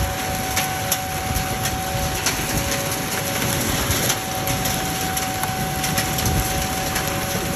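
Outdoor tornado warning siren sounding a steady two-note tone, over a loud wash of wind and rain with scattered sharp knocks.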